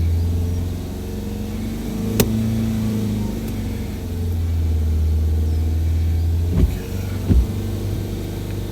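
Manual car's engine drone as the car moves off in third gear, steady and low, swelling for a couple of seconds in the middle. A sharp click about two seconds in and two short thumps about a second apart near the end.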